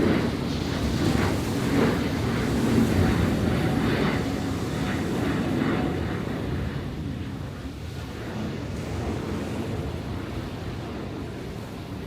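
Sea surf washing and breaking onto the shore, a rough sea stirred up by a recent typhoon. The wash is louder with splashing over the first half and eases off toward the end.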